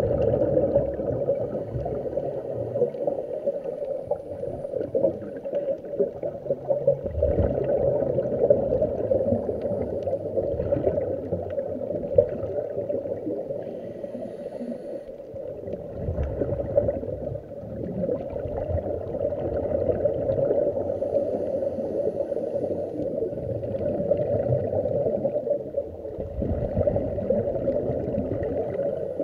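Muffled underwater noise heard through an action camera's sealed waterproof housing: the gurgling rush of scuba regulator exhaust bubbles over a steady low water hum, rising and falling in level every few seconds.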